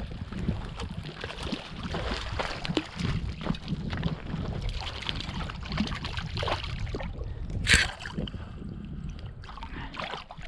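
Water sloshing and lapping, with irregular small knocks and one sharp, sudden sound about three-quarters of the way through.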